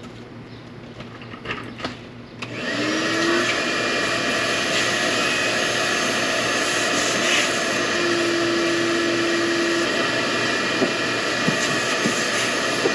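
A few faint knocks, then about two and a half seconds in a motor-driven machine starts up, its pitch rising briefly as it spins up, and runs steadily.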